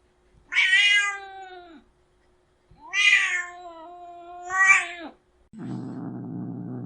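Domestic cat meowing twice: a short call falling in pitch, then a longer drawn-out yowl that swells again near its end. About a second and a half of low rumbling growl follows near the end.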